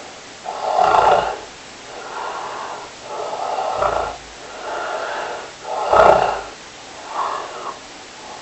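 A person snoring: a run of about six snores roughly a second apart, the loudest about six seconds in.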